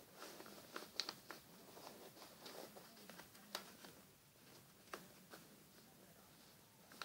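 A sheet of paper being folded and creased by hand: faint rustling and soft crackles, the sharpest about a second in and again about three and a half seconds in.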